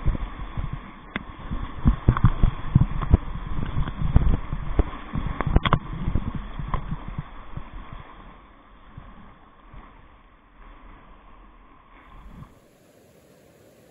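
Whitewater of a river rapid slapping against an inflatable kayak: a choppy low rumble with many knocks and thumps as waves hit the boat. It eases off after about eight seconds and cuts off suddenly near the end, leaving a faint steady hiss.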